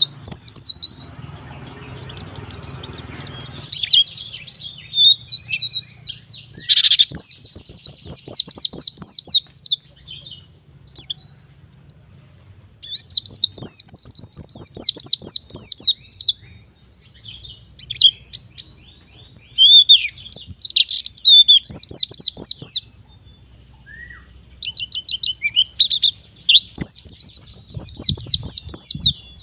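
A white-eye (pleci) singing in full voice: rapid runs of high, fast chirping notes in several long bursts broken by short pauses.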